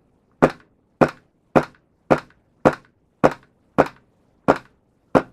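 KJ Works CZ P-09 gas blowback airsoft pistol fired nine times in slow succession, a little under two shots a second, each shot a sharp crack with the slide cycling. A decorative silencer is fitted, and the slide still cycles with it.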